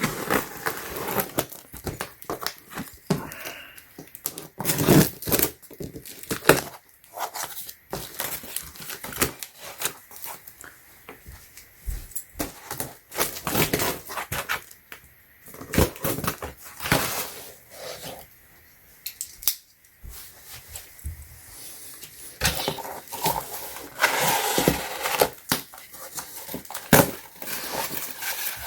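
Packaging being torn open and handled while a box is unpacked: irregular tearing, crinkling and rustling, with scattered knocks and clicks.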